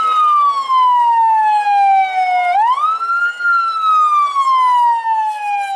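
Fire truck siren wailing: each cycle rises quickly in pitch, then falls slowly for about three seconds. A new rise starts about two and a half seconds in.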